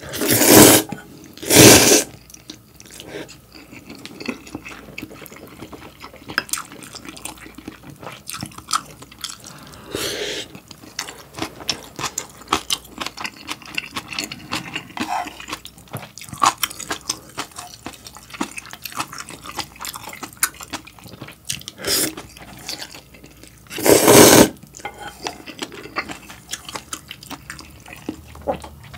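A person eating instant ramyeon with wet, loud slurps of noodles. There are two slurps right at the start, weaker ones around a third and three-quarters of the way through, and a longer loud slurp soon after. Between them come soft, wet chewing and mouth clicks.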